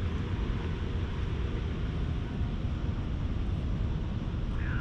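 Steady low rumble with a hiss above it: outdoor background noise with no clear single source.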